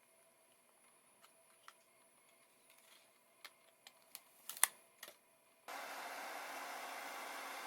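Scattered light clicks and taps of small hard parts being handled, bunching up about three to five seconds in, with one sharper click about four and a half seconds in. A steady hiss cuts in suddenly about two-thirds of the way through.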